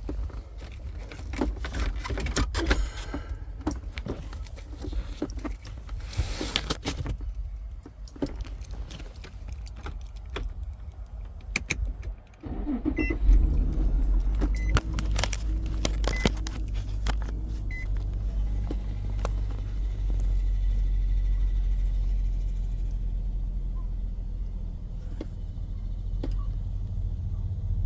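Keys jangling and clicking in the car's ignition, then the car engine cranks and starts about halfway through and settles into a steady low idle. A few short beeps sound just after it starts.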